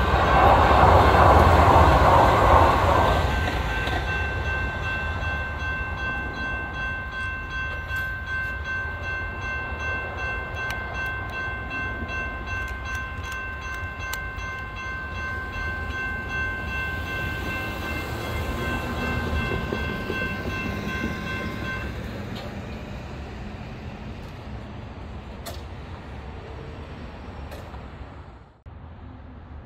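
Grade-crossing warning bells ringing steadily while a light rail train runs through the crossing, loudest in the first few seconds. The bells stop a little past two-thirds of the way in, and the train's rumble fades away.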